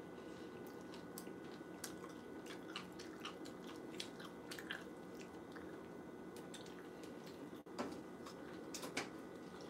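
A person chewing a mouthful of Trix cereal soaked in red wine, with many small mouth clicks. Two louder knocks come near the end.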